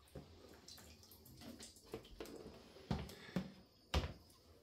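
Water dripping and splashing as a wet cloth bag of pap paste is lifted from a basin of its drained liquid and handled, with a few knocks, the loudest about four seconds in as the bag is set into a plastic box.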